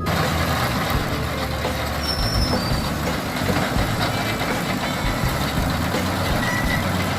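Tractor-driven New Holland Roll-Belt 180 round baler running steadily: an engine hum under a dense, even mechanical noise.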